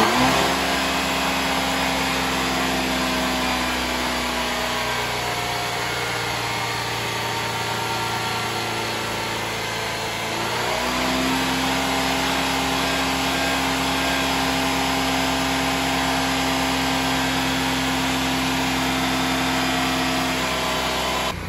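2014 Jeep Compass's 2.4-litre four-cylinder engine held at high revs, about 4,000 RPM, running steadily, with a small shift in pitch about halfway through and a drop in level near the end. The revs are raised to test the A/C system's pressures, with the variable-displacement compressor or its control valve suspected of being faulty.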